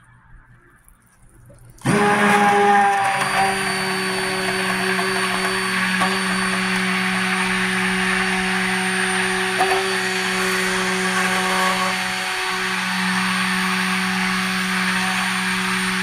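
Handheld immersion (stick) blender switched on about two seconds in and running steadily with an even motor hum, blending vegetable oils and neem powder in a plastic bucket. It cuts off right at the end.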